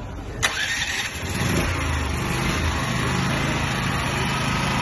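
A 2 kW petrol generator set's engine starting: a sharp click about half a second in, then the engine picks up and settles into a steady run from about a second and a half.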